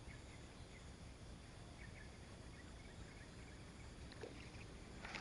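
Near silence: faint steady outdoor background noise with a few soft ticks.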